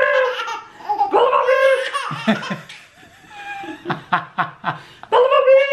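A woman and a baby laughing together, with a run of short, rhythmic laughing bursts about four seconds in.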